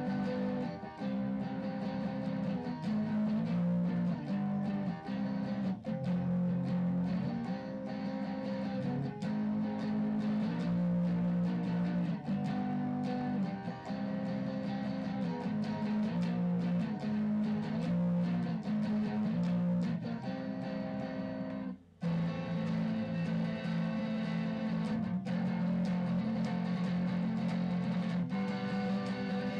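Electric guitar playing along with a rock song's instrumental passage, sustained notes changing every second or so, with a brief break about three quarters of the way through.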